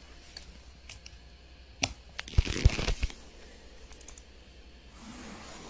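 Close handling noise: a few scattered clicks, and a short rustling, scraping burst with low knocks about two and a half seconds in.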